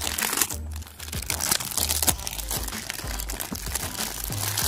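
Clear cellophane shrink-wrap being peeled and crumpled off a perfume box by hand, a continuous run of irregular sharp crackles.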